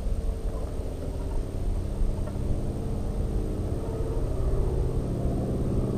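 Subaru SOHC EJ257 hybrid flat-four engine idling steadily. The owner finds the idle too low and puts it down to a worn throttle body bore.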